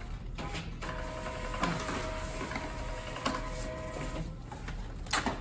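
Desktop label printer feeding out a barcode label, its motor running with a steady whine for about three and a half seconds, with a couple of clicks along the way.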